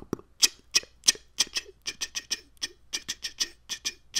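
Beatboxing: a fast run of mouth-made percussion, low thumps mixed with sharp hissing snaps, about four or five a second.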